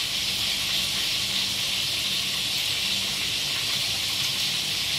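Steady sizzling hiss of a fish frying in oil in a pan on the stovetop, with a faint low hum underneath.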